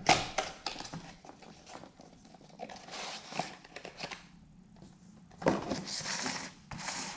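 Small cardboard product box being opened by hand. The packaging crinkles and rustles in several separate bursts, with a few sharp clicks.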